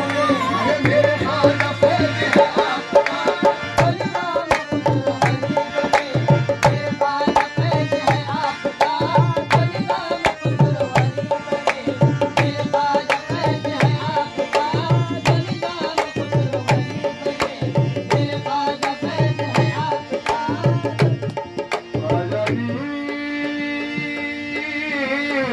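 Qawwali accompaniment: a harmonium holds chords over a hand drum playing a steady rhythmic beat, with a deep stroke about once a second. The drumming stops near the end, leaving the harmonium's sustained chord.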